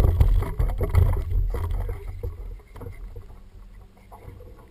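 Low rumble with irregular knocks and rattles from a small aluminium fishing boat and the gear on it as an angler fights a fish on a bent spinning rod; loud for about two seconds, then quieter.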